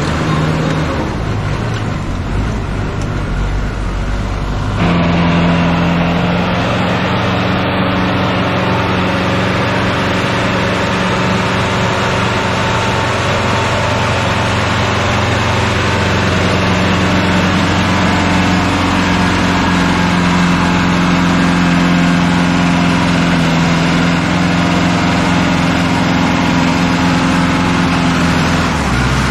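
New Holland tractor's diesel engine running steadily under load as it works through deep mud. About five seconds in the sound jumps to a louder, steadier engine note, heard close up.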